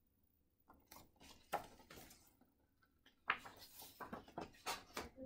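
Faint paper rustling and soft knocks as a hardcover picture book is handled and a page turned, in a few scattered short spells with a denser stretch in the second half.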